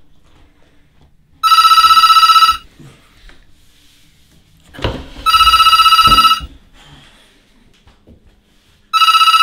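Corded landline telephone ringing with a fast-pulsing electronic trill: three rings of about a second each, roughly four seconds apart, the last cut off at the end. A single thump comes just before the second ring.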